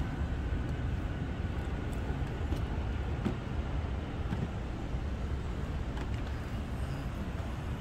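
Steady low rumble of outdoor airport and road traffic ambience, with no single aircraft standing out. A faint high whine fades away in the first couple of seconds.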